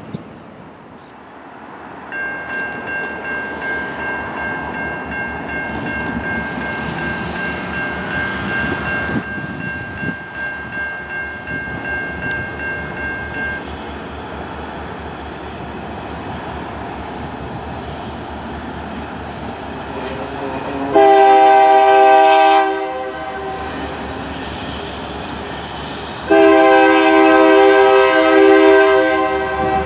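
A train running by with steady rumble and wheel noise, while a diesel locomotive's multi-chime air horn sounds twice in the second half: a short blast and then a longer one. Early on a steady high ringing tone runs for about ten seconds.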